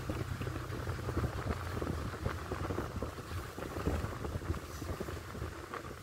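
Car rolling slowly over a snow-covered road, heard from inside the cabin: a low rumble with dense crackling from the tyres on the snow, easing off near the end.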